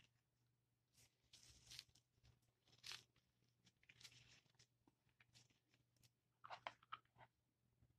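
Faint crackling and rustling of dry moss being pressed and worked onto a topiary ball by a gloved hand, in a series of short bursts.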